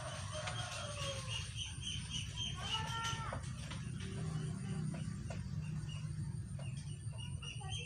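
Chickens clucking, with high chirps repeated several times a second over a steady low hum, and a few faint clicks.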